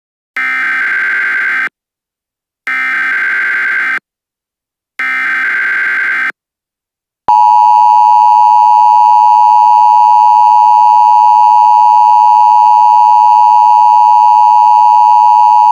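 Emergency Alert System tones: three short bursts of the SAME digital data header, then, about seven seconds in, a loud, steady attention tone that holds on.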